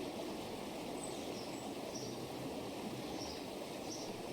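Countryside ambience sound effect: a steady even hiss with faint, short, high bird chirps every second or so.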